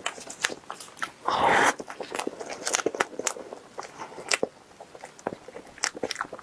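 Close-up eating sounds of someone chewing a soft, creamy mille crêpe cake: many wet mouth clicks and smacks throughout, with one louder burst of noise lasting about half a second, a little over a second in.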